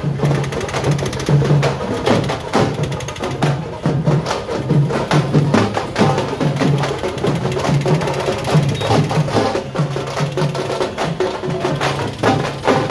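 Percussion music: dense, sharp, clicking strokes over a repeating low drum beat, loud and unbroken.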